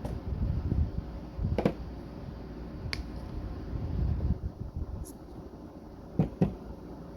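Handling noise from acrylic painting: low scrubbing rumbles with a few sharp clicks and taps, two of them close together near the end.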